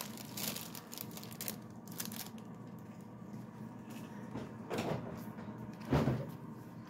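Toy packaging of card and plastic being handled and opened: light crinkling and small clicks, then two louder rustling knocks, about a second apart, near the end.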